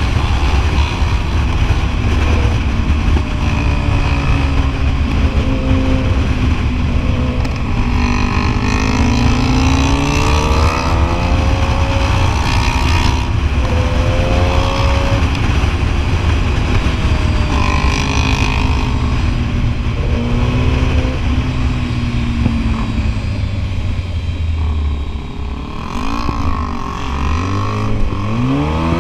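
Sport motorcycle engines revving up and down while riding, with several rising and falling sweeps in pitch and at times more than one engine at once; the revs climb hard near the end. A constant low rush of wind and road noise runs underneath.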